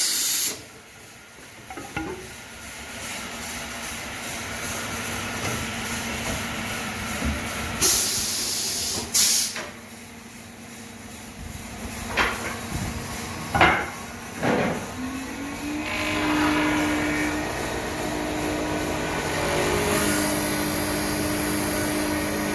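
Automatic CNC wood lathe working through a cycle: a few short, sharp hisses and several knocks, then from about two-thirds of the way in a motor running with a steady hum.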